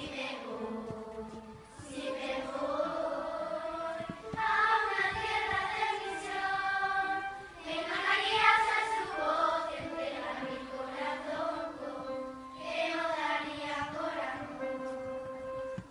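A group of children singing a song together in unison.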